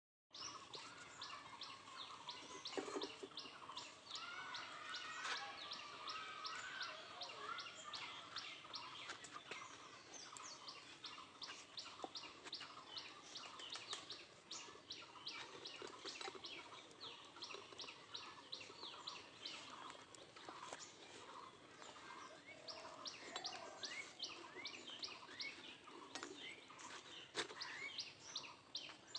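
Faint chorus of small birds chirping, a dense run of short, quick chirps overlapping with no break.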